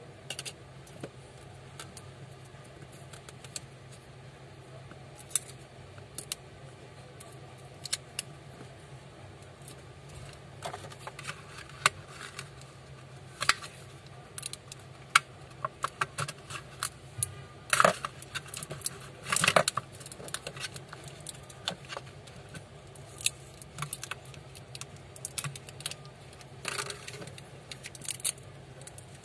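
Scattered clicks, taps and light rattles of a smartphone's plastic and metal parts being handled and pressed on a workbench, with rustling of a plastic sheet; a denser run of clicks comes about two-thirds of the way through. A steady low hum lies under it.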